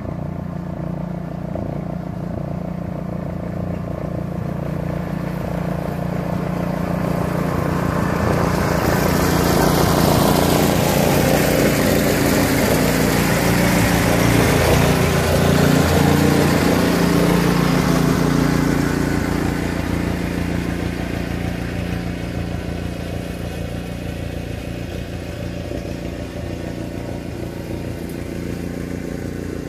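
Pickup truck engine running as the truck drives past: the sound builds over the first ten seconds or so, stays loud for several seconds, then fades away.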